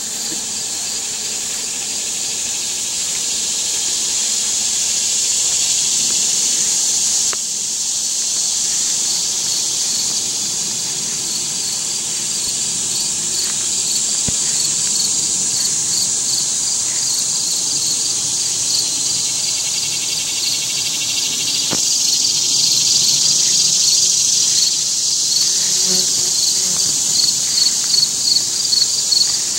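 A steady, high-pitched chorus of insects, with a rhythmic pulsing call that grows stronger near the end.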